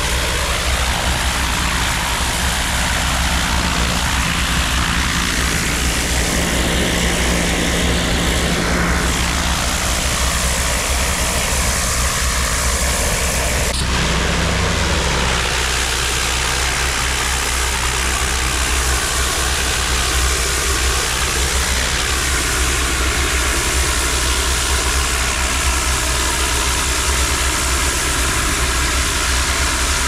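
Engine-driven steam cleaning machine running steadily, with the continuous hiss of its hot high-pressure jet washing the brickwork.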